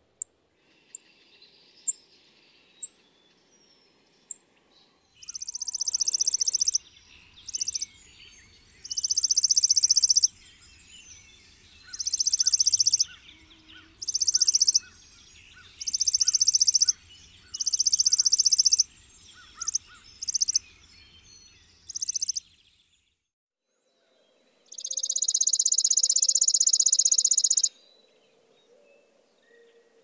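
Chipping sparrow: a few single high chip notes, then a string of its songs, each a rapid, dry trill of one repeated note lasting one to two seconds, with short gaps between them. After a brief pause near the end comes one longer trill.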